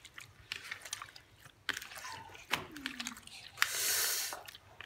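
Raw meat pieces being squeezed and kneaded by hand in a thick chili marinade in a plastic bowl: irregular wet squelches and clicks, with a longer squelch about four seconds in.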